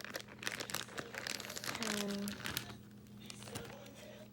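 Plastic zip-top bag crinkling and crackling as it is handled, dense through the first three seconds and thinning out near the end.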